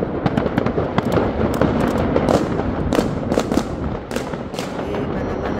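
Fireworks and firecrackers going off all around without a break: constant crackling with sharp bangs several times a second.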